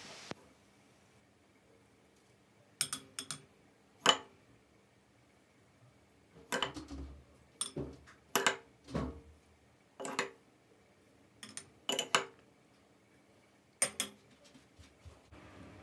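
Metal spoon clinking against a bowl and glass cups as crushed biscuit crumbs are scooped and spooned into the cups, about a dozen sharp clinks at irregular intervals.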